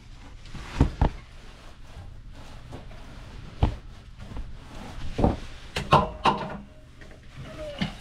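Scattered knocks and clicks, about eight in all, of hands and a rag working around an air-handler fan's pillow-block bearing and belt pulley while old grease is wiped out. A steady low hum runs underneath.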